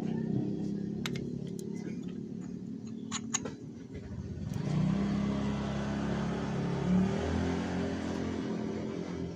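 Motorcycle engine running steadily, with a few sharp clicks early on. Then the revs rise about halfway through, and the engine runs louder and fuller.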